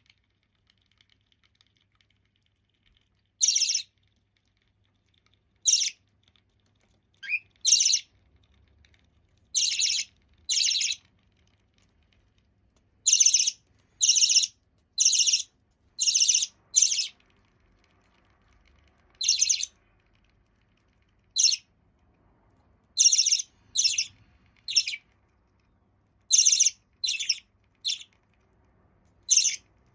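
Half-jumbo budgerigar chick calling: about eighteen short, high calls. They come singly or in quick runs of two or three, with pauses of a second or more between them.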